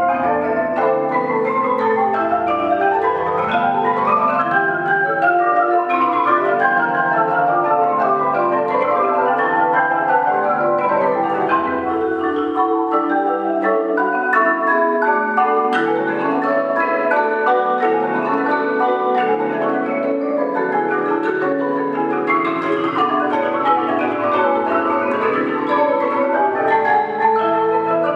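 Marimba ensemble of six players on three marimbas playing a continuous, dense stream of fast overlapping notes. The level stays steady.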